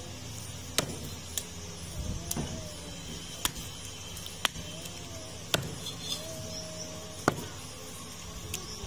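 Heavy butcher's cleaver chopping goat meat and bone on a wooden log chopping block: about eight sharp chops at an uneven pace, roughly one a second.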